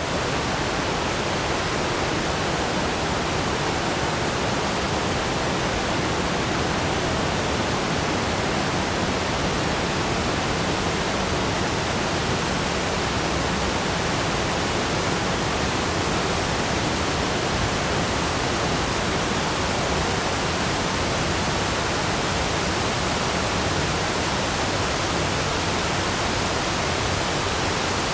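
Waterfall: a steady, dense rush of falling water with no breaks or changes.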